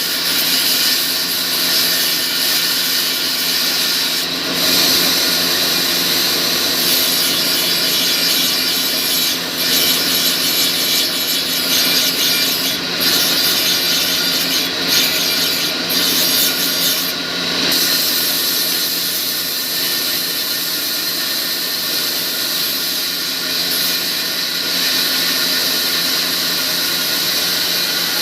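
Steady, continuous rasping of sawmill machinery: a saw or grinding tool working without pause over a constant machine hum.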